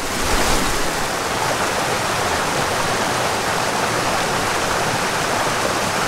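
Small mountain creek cascading over rocks and a little waterfall pouring into a pool: a steady, unbroken rush of water.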